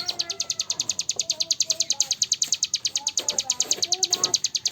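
Songbird 'cigun' singing a rapid high-pitched trill of about a dozen even, clicking notes a second, held without a break. Fainter lower whistled notes sound underneath.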